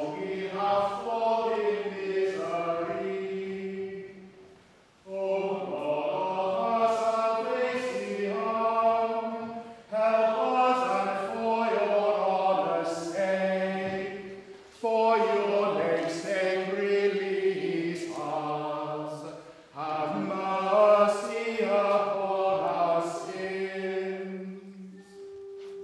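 Choir singing unaccompanied chant in long held phrases of about five seconds each, with short breaks for breath between them.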